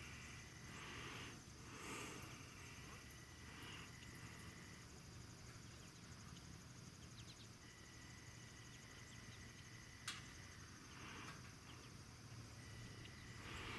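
Near silence with faint, steady insect trilling, a few soft breathy noises, and one sharp click about ten seconds in.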